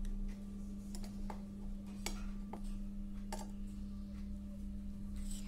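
A kitchen knife cutting a slice from a sponge cake, its blade clicking several times against the ceramic plate, over a steady low hum.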